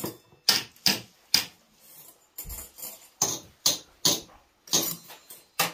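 Chopsticks and spoon tapping and clinking against ritual food dishes as they are set on the offerings, about a dozen sharp, irregular clicks.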